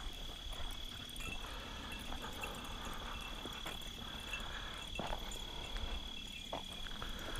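Steady, high-pitched chorus of night insects, with a few faint rustles and steps in the grass.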